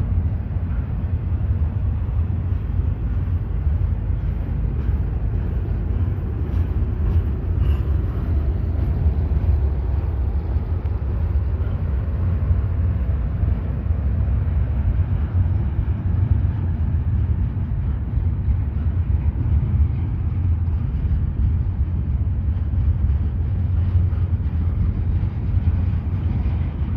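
Steady low rumble of a train.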